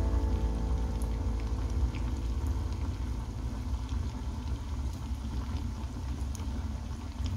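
Chicken-and-potato cutlets frying in hot oil, a steady sizzle with small crackles and pops.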